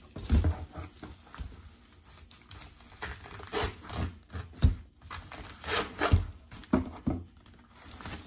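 Bubble wrap and plastic packaging being pulled and unwrapped by hand: irregular rustling and crinkling, with a few dull knocks.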